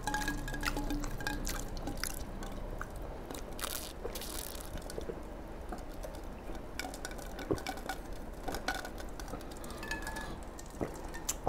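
A man drinking from a large glass of an iced drink: ice cubes clinking against the glass and the liquid moving, with scattered small clicks.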